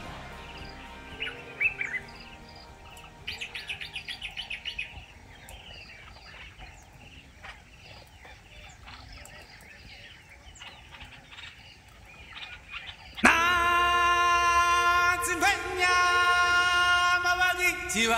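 Birds calling, with short chirps and a fast trill of repeated notes, over faint outdoor background. About 13 seconds in, loud music starts abruptly, carrying long held, chant-like notes.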